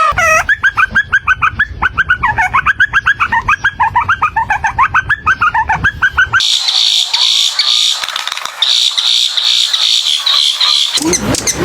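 Bird calls: a fast run of short repeated pitched notes, about six a second, then an abrupt switch to higher, buzzier chirping. Another abrupt change to a different sound comes near the end.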